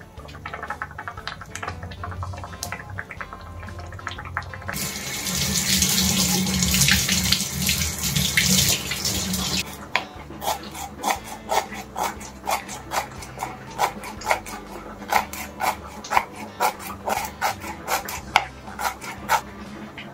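Water runs steadily from a tap for about five seconds. Then a knife chops coriander on a wooden cutting board in quick, even strokes, about two a second.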